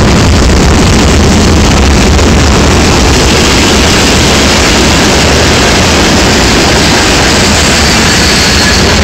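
Freight train of gondola cars and tank cars rolling past close by: a loud, steady rush and rumble of wheels on rail.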